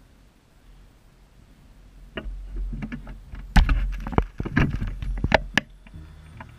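Handling noise on a body-worn camera's microphone: a cluster of knocks, clicks and low rumbling starting about two seconds in and lasting about three and a half seconds, the loudest knock about halfway through.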